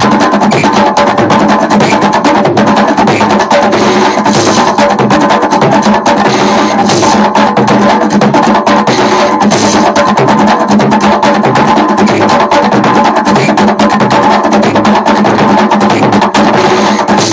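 West African percussion music: drums and a wooden percussion instrument played in a fast, steady rhythm without a break.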